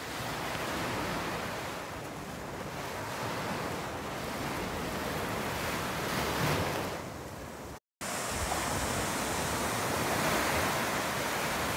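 Small sea waves washing onto a sandy beach, a steady surf wash with some wind on the microphone. The sound drops out for a moment about eight seconds in, then the surf resumes.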